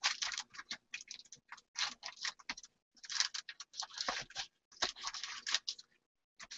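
Irregular quick clicks and rustles of craft supplies being handled and rummaged through, coming in clusters with short pauses.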